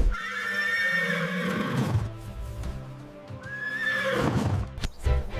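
Horse neighing twice, each a long whinny, the second starting about three seconds after the first, over background music.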